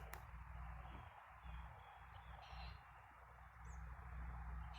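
Faint outdoor ambience: a steady low rumble with light hiss, and a brief faint bird chirp about two-thirds of the way in.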